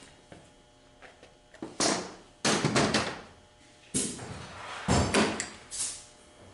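A run of loud clunks and scrapes, about five in a few seconds: metal transmission parts and tools being handled and set down on a workbench.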